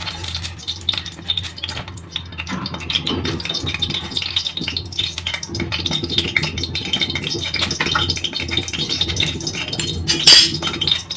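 Refined cooking oil heating in an iron kadhai on a gas burner, crackling and spitting steadily as it gets hot. A louder sharp pop or clink about ten seconds in.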